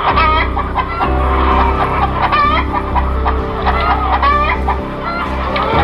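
Repeated short bird calls, each rising and falling in pitch, about once a second, over background music with a steady low bass.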